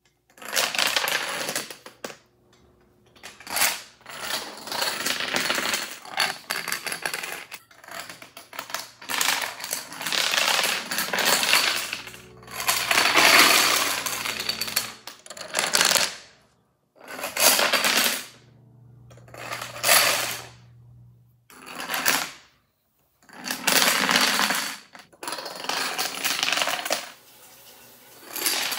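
Rows of small plastic dominoes toppling one after another on a wooden floor: a fast, rattling clatter that comes in a series of runs a second or a few seconds long, separated by short pauses.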